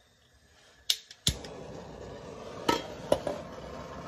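Metal tools knocking and clinking against metal, several sharp clanks with a short ring. After a loud knock about a second in, a steady rushing noise runs underneath.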